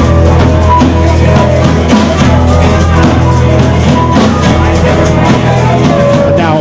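Rock and roll band playing live, an instrumental break with guitar over bass and a steady drum beat, no vocals.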